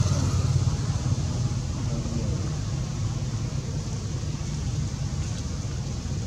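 Steady low background rumble, easing a little over the first two seconds.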